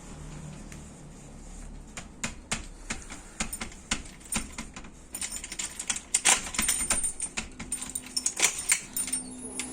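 A cat knocking at a door: quick, irregular taps, a few at first, then coming thick and fast from about five seconds in.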